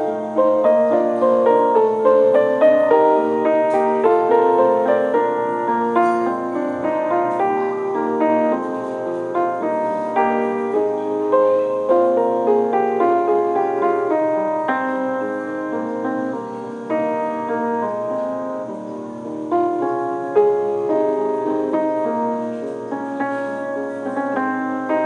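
Background music: a steady piano melody played as a continuous run of notes.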